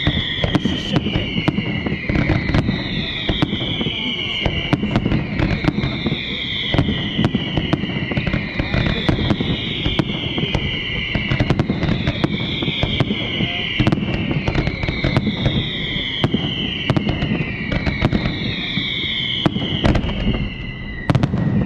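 Fireworks going off in quick succession: a dense run of bangs and crackles over a low rumble. Over them a high tone glides down in pitch again and again, about every two seconds.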